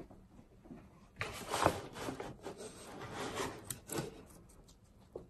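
Rustling and scraping as a beagle climbs up and paws at a wooden crate lined with a blanket, with a few sharp knocks about four seconds in.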